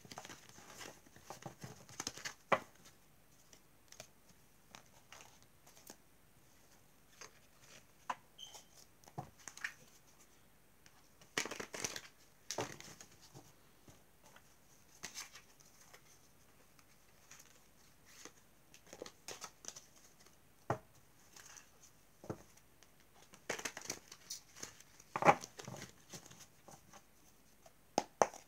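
A deck of oracle cards being gathered up and shuffled by hand: irregular soft rustles, slides and light taps of card on card, with louder flurries of shuffling about twelve seconds in and again near the end.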